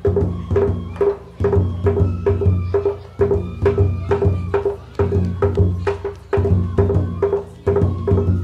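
Japanese festival ohayashi: children playing taiko drums and bamboo flutes, a steady drum rhythm under a high flute melody.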